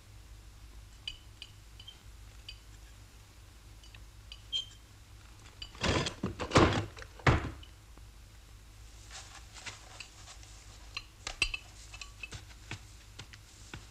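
Knife and fork clinking lightly against a plate. About six seconds in come a few louder knocks and thuds, then more faint clicks.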